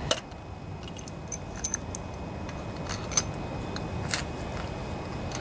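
Scattered light clicks and clinks of small metal engine parts being handled: a carburetor and gasket being fitted to a small engine's intake manifold, with a couple of brighter ringing metallic clinks.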